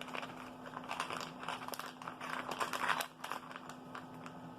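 Plastic keycap packaging crinkling as it is handled, for about three seconds, then quieter.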